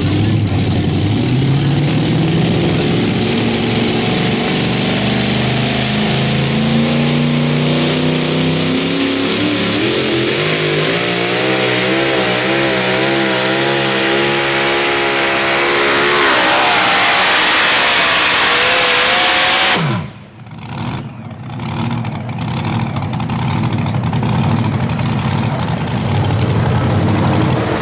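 Pulling vehicle's engine at full throttle under load, its pitch climbing steadily and wavering near the top, then dropping away abruptly about twenty seconds in as the engine winds down.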